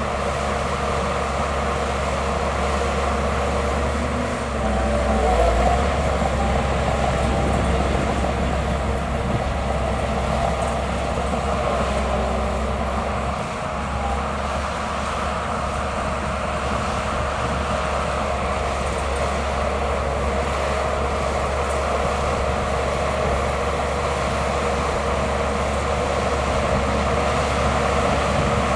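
Bulldozer's diesel engine running steadily under load, swelling louder briefly about five seconds in.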